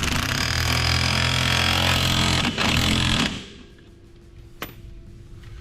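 Power tool running a nut down onto a new wheel stud to draw it through the hub. It runs loud and steady for about three seconds, then stops suddenly. One sharp click follows about a second later.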